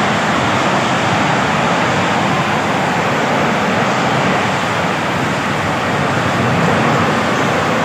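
Strong whirlwind wind blowing hard, a loud steady rushing roar.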